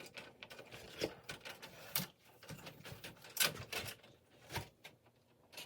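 Scattered light clicks and knocks from hand work on a dishwasher door handle and its fittings, coming at irregular intervals about once a second.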